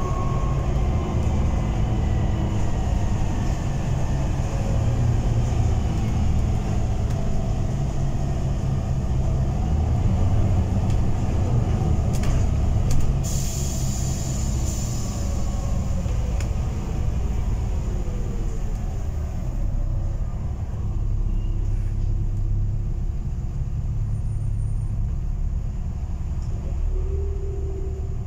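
Interior sound of a diesel bus under way: engine and road rumble, the engine note rising and falling as it pulls away and changes gear. A short hiss cuts in about halfway through.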